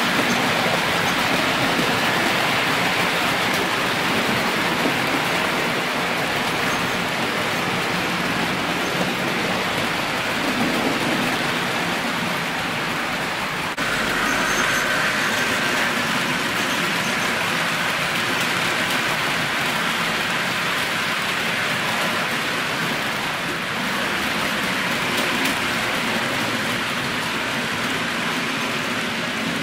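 HO-scale model freight train of two-axle goods wagons rolling along the track: a steady hiss and rattle of small metal wheels on the rails, which shifts abruptly about fourteen seconds in.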